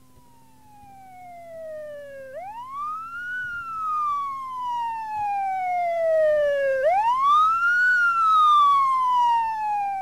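Police siren sound effect wailing. Each cycle is a quick rise in pitch and a long slow fall, repeating about every four and a half seconds. It fades in and grows steadily louder.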